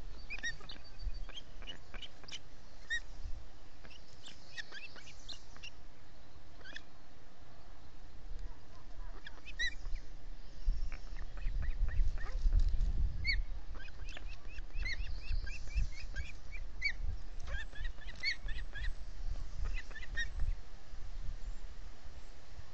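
Ospreys calling with short, high chirps in scattered clusters, over a low rumble of wind on the microphone.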